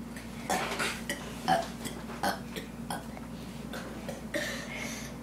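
A person burping on purpose, a string of short deliberate burps in quick succession, about one or two a second.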